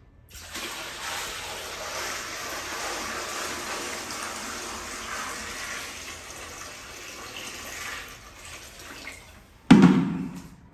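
Water pouring steadily into a large pot of yogurt for kadhi, trailing off after about eight seconds, followed by one loud knock near the end.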